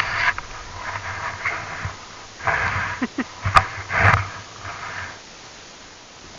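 Repeated bursts of hissing from turns through deep powder snow, about one a second, with a sharp click about three and a half seconds in.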